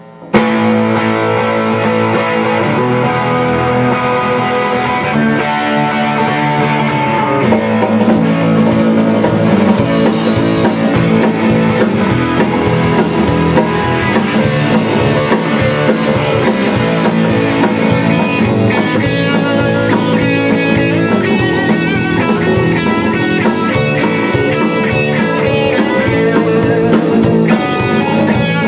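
Rock band playing an instrumental intro: electric guitars start at once, and the drum kit with cymbals joins about seven seconds in, after which the full band plays on steadily.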